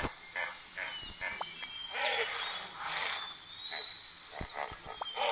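Wild animal calls repeating in short noisy bursts, one or two a second, with high bird-like chirps and whistles above them and a sharp click right at the start.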